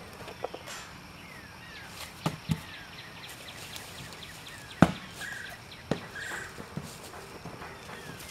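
A donkey's hooves stepping on dry leaf-strewn dirt, with several short knocks from a ball being handled and pushed, the loudest a little over halfway. Small birds chirp with short falling notes in the background.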